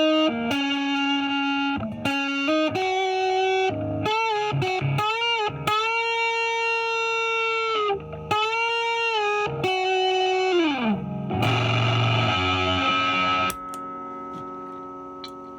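Epiphone 1959 Les Paul Standard reissue electric guitar on its neck pickup through a Fuzz Face fuzz pedal, playing single-note lead lines with string bends and vibrato. About eleven seconds in it strikes a chord, then lets the notes ring and fade slowly.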